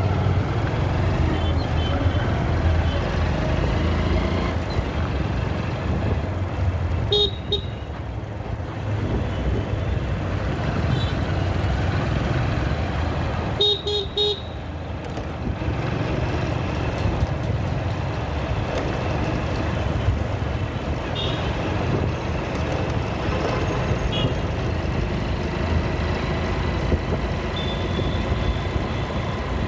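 Motorcycle engine and wind noise during a ride through traffic, steady throughout. Vehicle horns honk in short toots twice, about a quarter of the way in and again near the middle, with fainter honks later.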